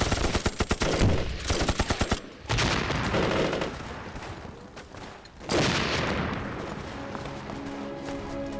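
Rapid bursts of automatic gunfire for the first two seconds and again briefly around three seconds in, then a sudden loud blast about five and a half seconds in that dies away over a couple of seconds. Soundtrack music comes in near the end.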